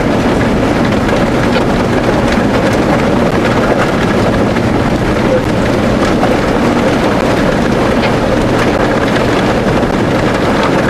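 Steady vehicle engine and road noise with wind buffeting the microphone.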